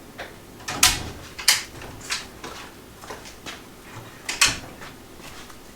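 Unboxing handling noises as a Sheffield multi-tool set and its packaging are handled: a scattered run of sharp clicks and knocks, four of them louder than the rest.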